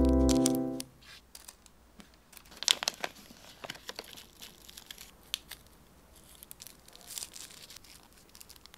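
Hand-rolling a cigarette: scattered soft rustling, crinkling and small clicks of a rolling-tobacco pouch and a rolling paper being handled. Guitar music fades out about a second in.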